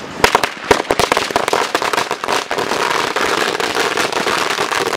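A long string of firecrackers going off: separate sharp bangs at first, quickening after about a second and a half into a dense, continuous rattle of cracks.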